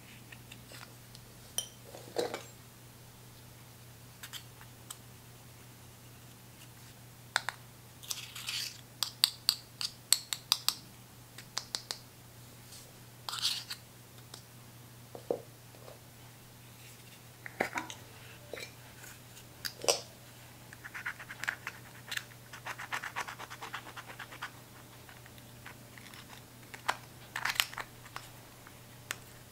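Metal tool scraping and cracking pressed eyeshadow out of its pans: scattered sharp clicks and scratchy runs, with bursts of rapid scraping, over a faint steady hum.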